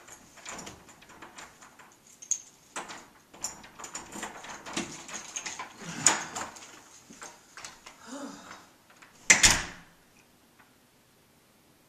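A door being worked by hand: a series of small clicks and rattles from its knob and deadbolt as it is unlocked and opened, then the door shutting with one loud bang about nine seconds in.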